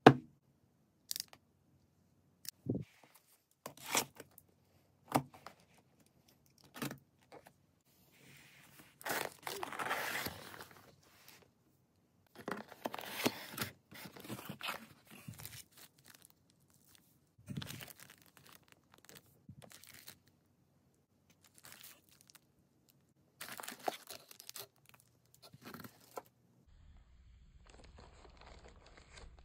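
Cardboard mailer box and plastic packaging being handled. Short sharp clicks and taps as the box flaps are worked open are followed by several stretches of crinkling and rustling as the paper and plastic bags inside are pulled out. A faint low hum comes in near the end.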